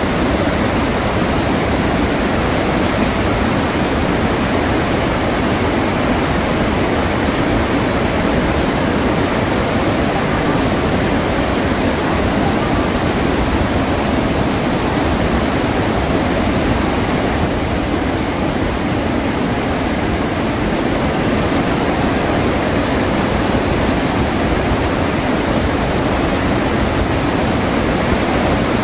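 Iguazu Falls: a large waterfall's heavy, unbroken rush of falling water, loud and steady throughout.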